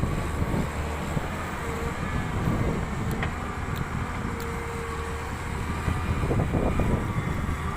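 Diesel engine of a Volvo EW160B wheeled excavator running steadily under work, with a faint whine that comes and goes twice.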